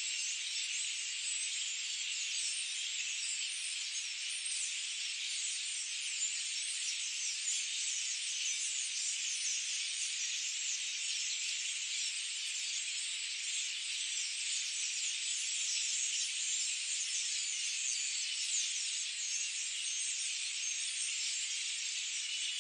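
Forest ambience: a dense, unbroken high-pitched chorus of many small overlapping calls, steady in level, with nothing low underneath.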